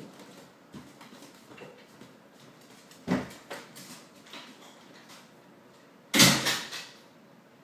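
A door banging twice: a knock about three seconds in, then a louder bang about six seconds in that rings on briefly.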